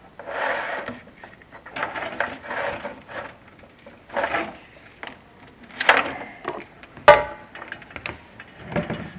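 A chimney video inspection camera and its push rod scraping and rubbing against creosote-coated clay flue tile in irregular bursts, with a sharp knock about seven seconds in.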